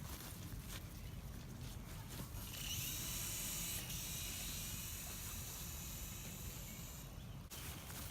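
High whine of a toy RC aircraft's small electric motors and rotors spinning up about two and a half seconds in, running steadily, then cutting off suddenly near the end. Low wind rumble on the microphone underneath.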